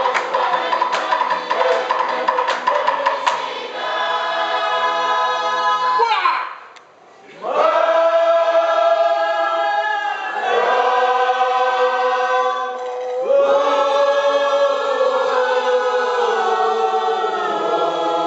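A choir singing a slow song in harmony, holding long chords in phrases, with the voices sliding up into each new phrase. The singing pauses briefly about six and a half seconds in. Sharp rhythmic percussive clicks run under the singing for the first few seconds.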